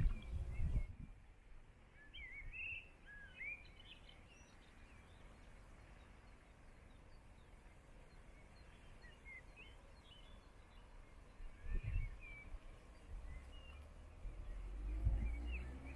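Small birds chirping in short, scattered calls, busiest a couple of seconds in, over quiet outdoor background noise. Low rumbles come at the start, about twelve seconds in and again near the end.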